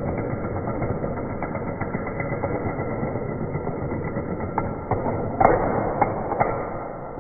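Rapid, continuous clatter of dominoes toppling one after another in a long chain, with a few louder knocks about five and a half to six and a half seconds in, fading away near the end.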